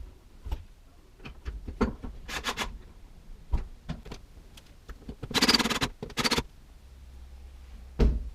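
Tool work on a wall fixing: several short bursts of rapid clicking, about a second long, with single knocks and scrapes between them.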